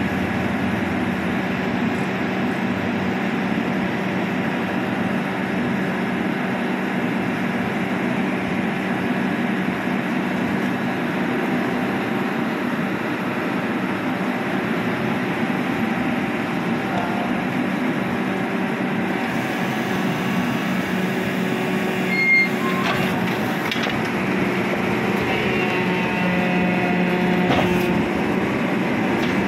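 Rear-loading garbage compactor truck running steadily with its hydraulics engaged, giving a constant low hum. A sharp metallic knock comes about 22 seconds in. Near the end the note changes and new tones come in as the bin lifter tips a wheelie bin into the hopper.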